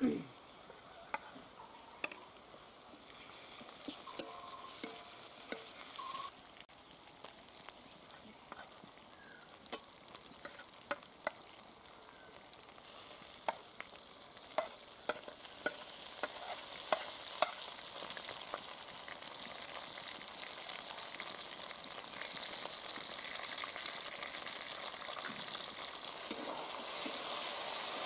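Onions and spice pastes frying in mustard oil in a metal karahi, sizzling, with a steel spatula clicking and scraping against the pan as it stirs. The sizzle grows louder about halfway through.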